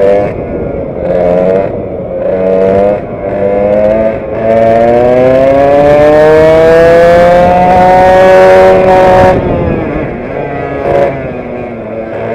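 Vintage racing kart's two-stroke engine heard onboard, revving in several short bursts through the corners, then climbing steadily in pitch for about four seconds on the straight before cutting off about nine seconds in as the throttle is lifted.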